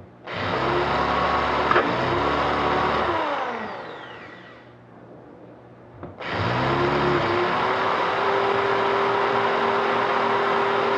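Electric drill running in two bursts, boring out a steel trigger lock; each run starts suddenly and winds down with falling pitch when the trigger is released, about three seconds in and again near the end.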